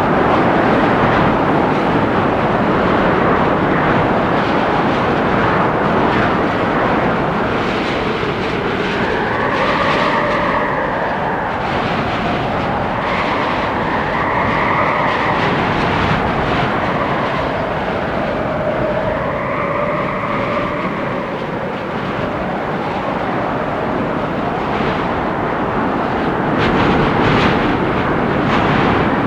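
Storm wind gusting through forest trees: a steady rush of wind with three drawn-out howls that rise and fall in pitch, about a third of the way in, near the middle and about two-thirds through.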